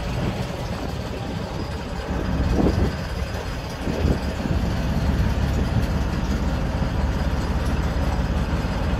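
A boat engine running steadily, a low rumble.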